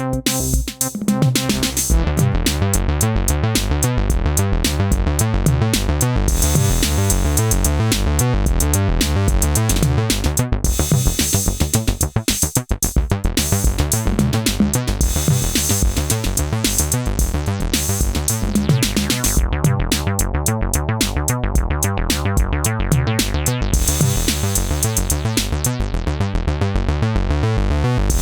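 Synthesizer bass line playing a repeating pattern over a drum machine beat; the full groove comes in about two seconds in.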